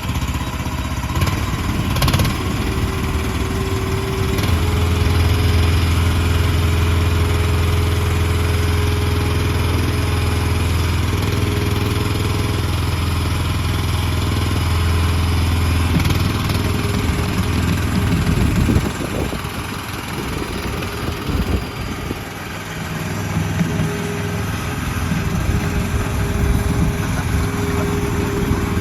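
The 13.5-horsepower gas engine of a mini skid steer loader running just after being started. It gets louder and steadier about four seconds in, drops back around nineteen seconds, and picks up again a few seconds later.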